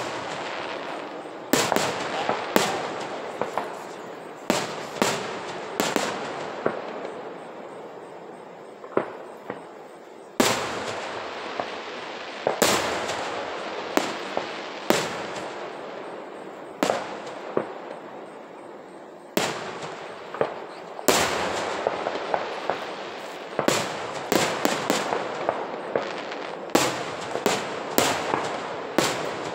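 Aerial firework shells bursting overhead: a string of sharp booms every second or two, each trailing an echo. The bursts come thick and fast in quick volleys near the end.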